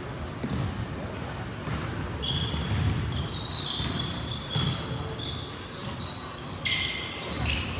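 A basketball bouncing on a hardwood court, with short high sneaker squeaks scattered throughout and a louder high-pitched sound near the end.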